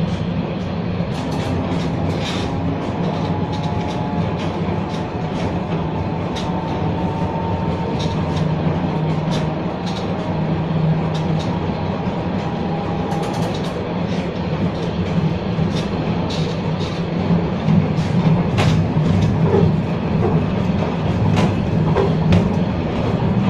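Historic M 24 museum tram running, heard from inside the car: a steady low rumble with irregular clicks and knocks from the wheels on the rails. A faint whine comes and goes midway.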